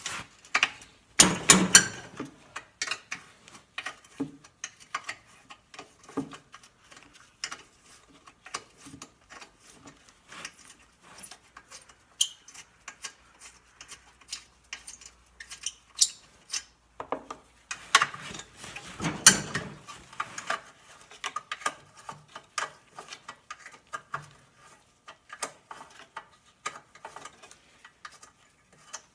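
Socket ratchet loosening the half-inch bolts on top of a 10 HP Tecumseh engine's cover, its pawl clicking in quick runs. Louder metal clattering comes about a second in and again a little past halfway.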